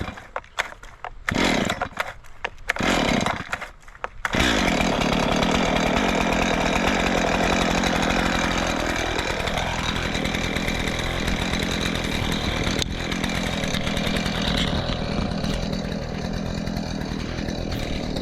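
Gas chainsaw being pull-started with the choke off: several short bursts in the first four seconds, then it catches at about four seconds and runs steadily until the sound cuts off abruptly.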